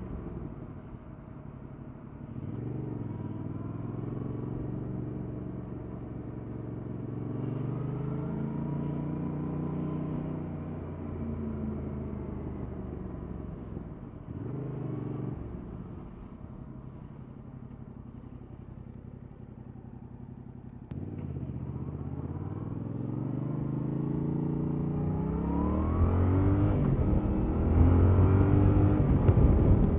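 Yamaha MT-07's 689 cc parallel-twin engine with stock exhaust, ridden through the gears. It rises and falls in pitch, settles lower and quieter about halfway through, then accelerates hard through several upshifts near the end, getting louder.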